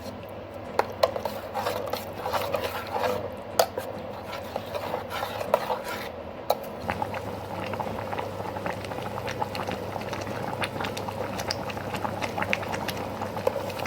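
A spoon stirring a wet spice masala in a metal pan, clicking and scraping against the pan. From about halfway in, a dense run of fine crackling ticks as the gravy boils.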